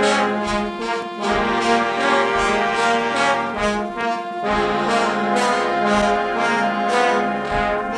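Trombone choir with tuba and drum kit playing a brass fanfare: full, held brass chords punctuated by repeated drum hits.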